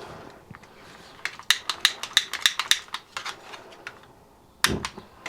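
Lighter being struck over and over to light an oxy-propane torch: a quick run of sharp clicks, then a louder pop near the end.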